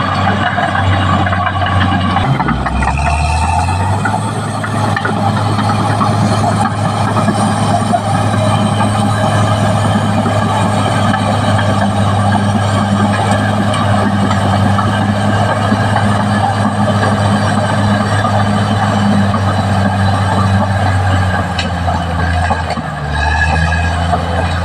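Caterpillar D6R XL bulldozer's diesel engine running steadily. Its pitch dips and recovers about two seconds in and again near the end.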